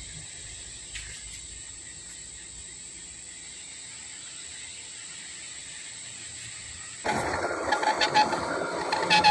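Faint steady hiss with a thin high whine. About seven seconds in, a metal lathe starts cutting into a steel excavator hydraulic cylinder shaft at its clevis joint: a loud scraping hum with a steady tone, broken by irregular clicks of breaking chips.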